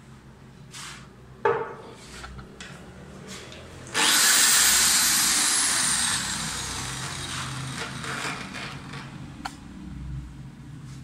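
Corded electric drill clamped in a bench vise, switched on about four seconds in: the motor whines up to speed, then slowly winds down, its pitch falling over several seconds. A few knocks and clicks of handling come before it starts.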